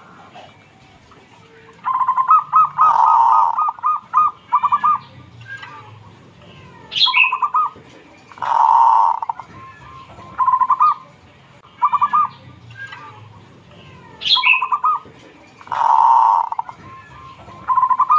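Local zebra dove (perkutut) cooing its rhythmic song: phrases of quick, evenly spaced notes, each running into a longer rolling coo. The phrases start about two seconds in and repeat every two to three seconds.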